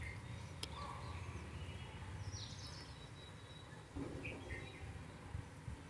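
Quiet background with a steady low hum and a few faint bird chirps about halfway through. About four seconds in, thick rice-and-coconut batter is poured softly from a mixer jar into a steel pot.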